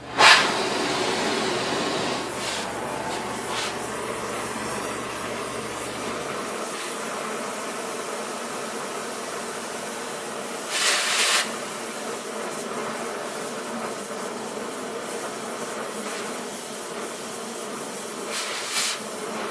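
Oxy-fuel cutting torch on railroad rail steel: a sudden pop as it starts, then a steady hiss of the flame cutting, with louder surges of hiss about eleven seconds in and again near the end.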